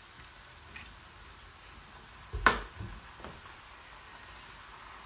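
Fried rice sizzling faintly in a frying pan as soy sauce is poured in, with one sharp knock about two and a half seconds in and a few lighter ticks.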